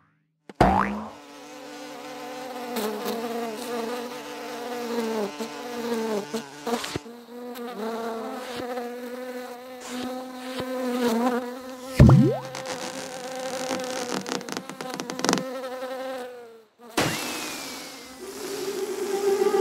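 Cartoon housefly buzzing as it flies about, its pitch wavering up and down, with a sharp hit about twelve seconds in that is the loudest sound.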